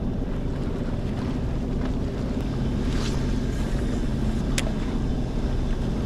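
Sea-Doo Explorer Pro 230 jet ski engine idling steadily, with a single sharp click about four and a half seconds in.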